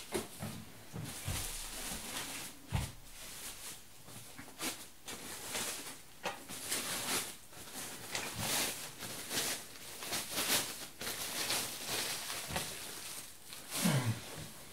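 Plastic packaging bag and foam rustling and crinkling as a monitor stand is unwrapped and handled, with a couple of soft thumps in the first few seconds.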